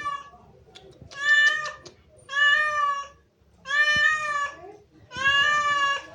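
A cat meowing over and over: four long, level-pitched meows, one about every second and a half.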